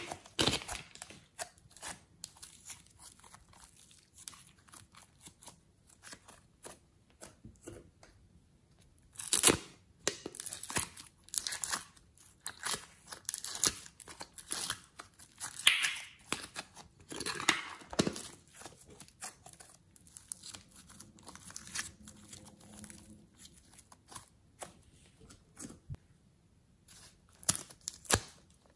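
Plastic piping bags crinkling and rustling in the hands as soft clay is squeezed out of them, in irregular bursts of crackling with a few louder ones.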